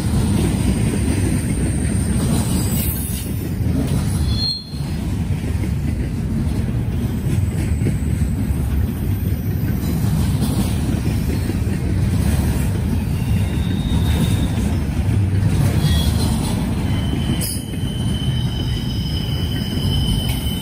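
Norfolk Southern freight train's cars rolling past: a steady heavy rumble of steel wheels on rail, with thin high wheel squeals now and then, the longest near the end.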